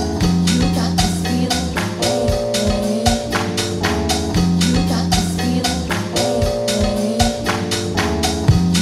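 Lo-fi house music: a steady drum beat over a repeating bass line and chord loop that starts over about every four seconds.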